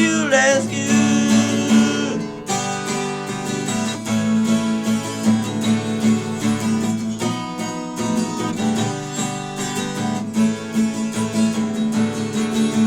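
Acoustic guitar strumming chords steadily in a punk-rock song's instrumental ending, with no singing.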